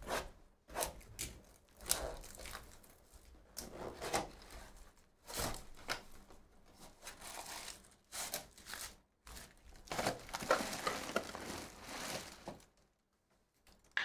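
A cardboard box of trading card packs being torn open and the packs pulled out and handled: a run of rustling, tearing and crinkling of cardboard and wrappers, thickest about ten to twelve seconds in, after which it goes quiet.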